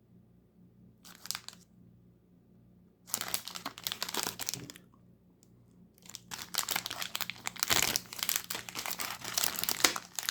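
Chocolate candy wrapper being torn open and crinkled by hand: a brief rustle about a second in, then crinkling and tearing that grows denser and louder from about six seconds.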